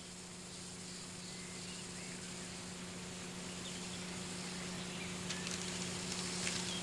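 Quiet outdoor ambience with a steady low hum, slowly growing louder, and a few faint high chirps near the end.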